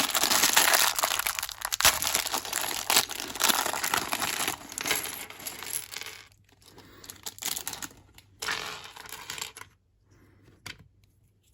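Minifigure packaging crinkling and tearing as it is handled and opened. The sound is dense for about six seconds, then lighter crinkling, with a few small clicks near the end.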